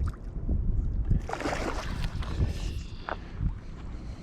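Wind rumbling on the microphone, with water splashing and sloshing for about two seconds starting about a second in.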